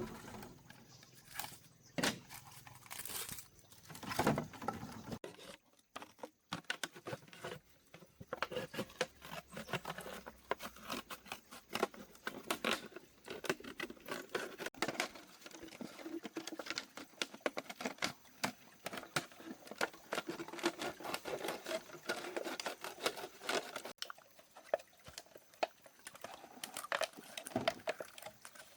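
Plastic bottles being handled and worked on by hand: a dense, irregular run of crinkling, scraping and light tapping.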